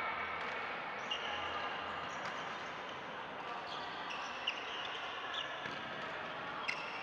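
Badminton play in a large indoor hall: sharp pops of rackets striking shuttlecocks and brief squeaks of court shoes on the floor, over a steady murmur of distant voices and echoing play.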